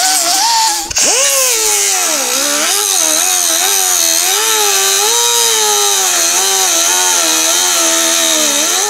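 Small grinder spinning an abrasive disc against the rusted steel seam of a car floor pan, throwing sparks as it grinds off an old weld. Its whine sags and rises in pitch as the disc bites and eases, with a brief let-up about a second in.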